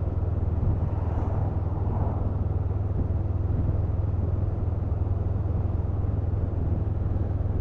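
Honda CMX500 Rebel's parallel-twin engine running at a steady cruise, a constant low hum under an even rush of road and wind noise.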